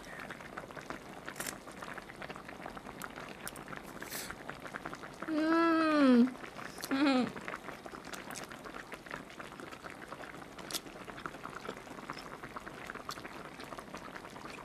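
A pot of spicy braised mackerel and radish simmering, with a steady fine bubbling and a few light clicks. About five seconds in, a short hummed vocal sound rises and then falls in pitch, followed by a shorter one a second later.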